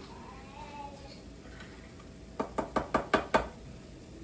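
A quick run of about six light knocks within about a second, a little past halfway, against quiet kitchen room tone.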